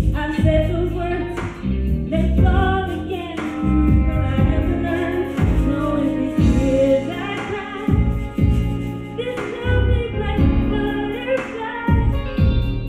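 A woman singing an R&B ballad into a handheld microphone over a karaoke backing track, with long held notes that bend in pitch.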